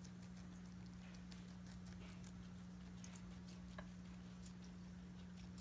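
Faint crisp clicks, irregular at about three or four a second, of a guinea pig chewing a piece of pepper, over a steady low hum.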